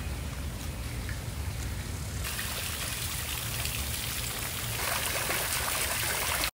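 Water from a tiered cast-iron fountain splashing and trickling into its basin, coming in suddenly about two seconds in and growing louder near the end, over a low steady rumble.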